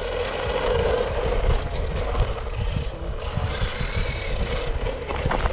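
Brushed electric motor of a 1/10 scale two-wheel-drive RC truggy running on a 2S LiPo, a whine that bends briefly in pitch about four seconds in, over a steady noisy running sound with many small clicks.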